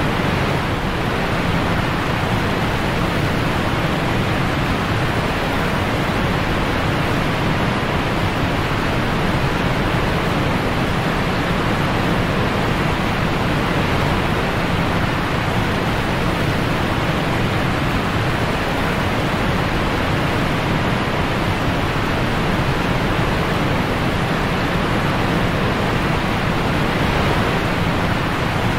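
Steady, loud rush of whitewater rapids, heard up close from a kayak running through them.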